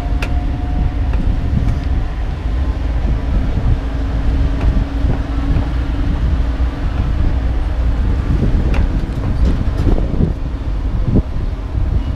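Steady low rumble of a sightseeing tourist tram in motion, heard from on board, with wind on the microphone and a few light knocks.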